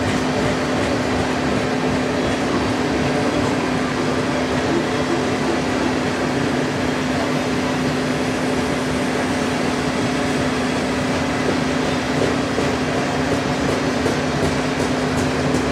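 Covered hopper cars of a long freight train rolling past: a steady rumble of steel wheels on rail with a steady low hum.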